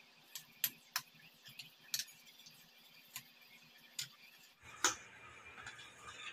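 A metal spoon clinking and scraping against a ceramic plate while stirring a thick dal paste. It gives about seven sharp, irregular clinks, the loudest a little before the five-second mark.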